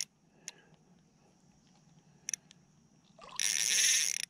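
Spinning reel on an ultralight rod being cranked while bringing in a small hooked bass: a few light clicks, then about a second of steady reeling near the end.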